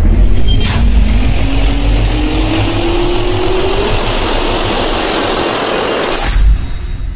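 Jet engine spool-up sound effect: a loud rumble with a whine rising steadily in pitch, a sharp hit about a second in, and a low boom near the end before the sound cuts off and fades.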